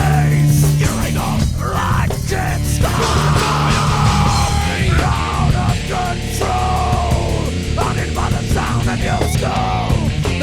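Heavy metal band playing an unmixed, unmastered studio track: distorted electric guitars over bass and drums, with no lyrics sung.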